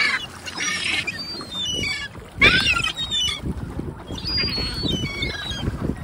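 Gulls calling repeatedly in short, high, squealing notes that slide downward, in several clusters, the loudest just before halfway, over a low rumbling noise.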